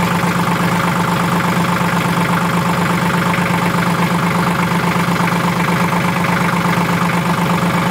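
Tractor engine idling steadily, heard close from the operator's seat.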